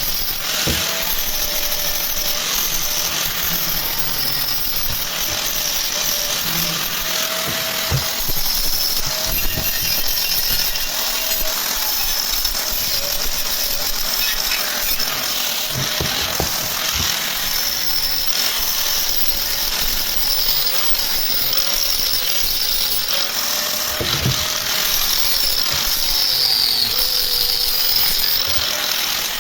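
Steady metalworking power-tool noise, a harsh continuous hiss with a faint whine that wavers in pitch and a few sharp knocks.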